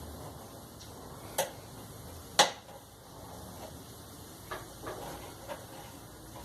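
Tools and small parts being handled during a clothes dryer repair: two sharp clicks about a second apart, the second the louder, then three softer clicks near the end.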